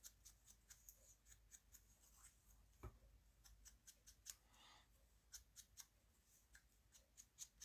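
Very faint, scattered small clicks and paper rustles: die-cut cardstock poinsettia petals being handled and dabbed with ink from a sponge dauber, with one slightly stronger tap about three seconds in.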